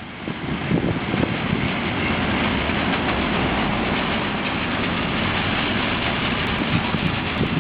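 A train passing, a steady rolling rumble of wheels on rail.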